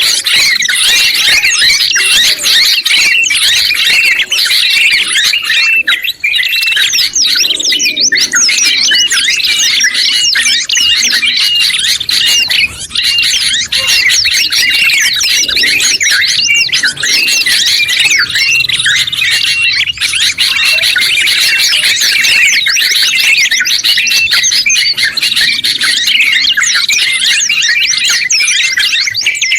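Dense, continuous mix of songbirds chirping and trilling rapidly and without pause: a combined track of bulbuls (yellow-vented bulbul and sooty-headed bulbul), prinia and white-eye songs.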